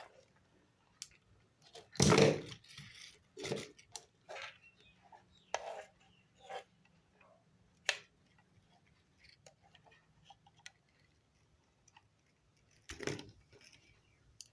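Handling noise of wires and multimeter probes being worked at a bench: scattered clicks, knocks and rustles, the loudest knock about two seconds in and another near the end, over a faint low hum.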